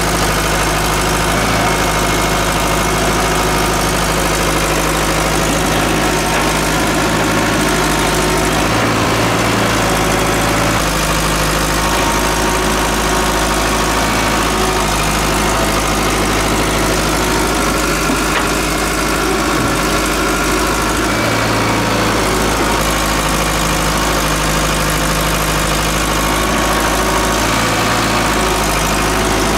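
Heavy diesel engine of earth-moving machinery running steadily, its low note shifting a few times as the load changes.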